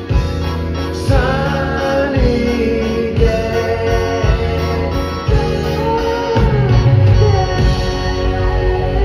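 A band playing live with singing: long held vocal notes over a steady drum and bass beat.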